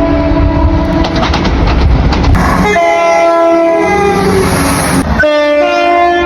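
Train horns sounding in three short held blasts, cut one after another about every two to three seconds. Each blast is a chord of several steady tones, heard over the low running noise of a train.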